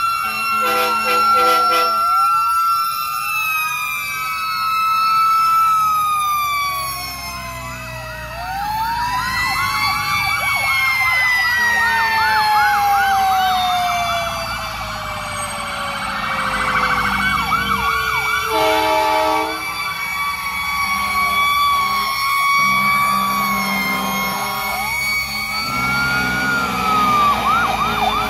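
Sirens of several passing fire trucks sounding together: long wails that wind slowly up and down, overlapped by fast up-and-down yelps, over the rumble of the trucks' engines. Short blasts of a deep horn sound about a second in and again about two-thirds of the way through.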